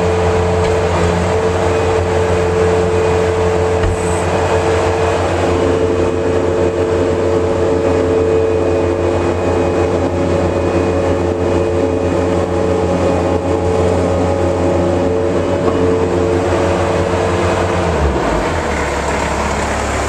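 Kubota four-cylinder diesel engine of a Bobcat 753G skid steer running steadily just after a key start. Its note drops a little about two seconds before the end.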